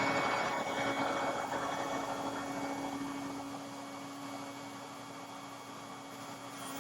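A power woodworking machine's rushing noise dying away over several seconds, leaving a steady hum.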